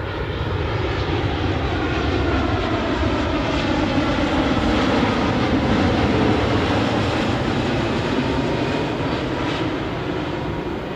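Boeing 787-9 Dreamliner on final approach, flying low overhead. Its jet engine rush swells to a peak about six seconds in, then fades as it passes away, with a slow falling sweep running through the noise.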